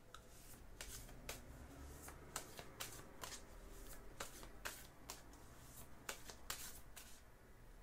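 A deck of African Animal Messages oracle cards being shuffled overhand by hand: faint, irregular soft card slaps and clicks as small packets drop from hand to hand, thinning out near the end.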